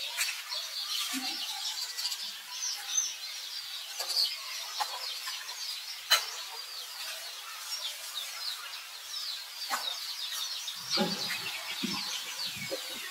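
Birds chirping and twittering, with many short high chirps throughout. A sharp click comes about six seconds in, and some low rustling knocks near the end.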